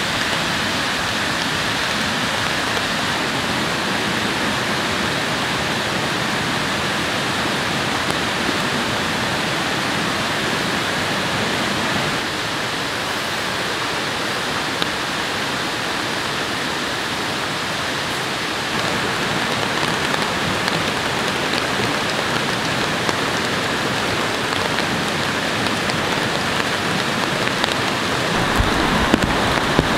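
Heavy tropical rain together with a swollen, fast-flowing river rising after about an hour of rain, heard as a continuous even rushing hiss. Near the end, closer raindrops pattering on a surface come in.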